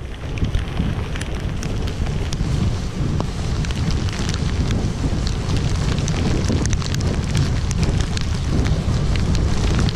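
Wind buffeting the bare microphone of a GoPro Hero 5 used without its housing on a moving bicycle on a wet road: a loud, steady low rumble under a hiss, with many scattered small ticks.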